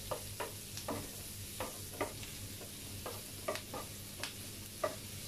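Wooden spatula scraping and knocking chopped onion around a nonstick frying pan, in short irregular strokes about two a second. Under the strokes is the faint sizzle of onion shallow-frying in butter.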